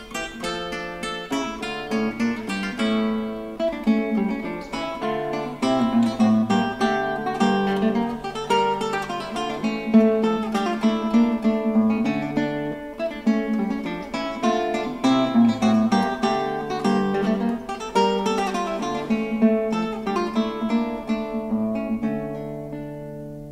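Background music of plucked and strummed acoustic guitar, a steady run of notes that dies away near the end.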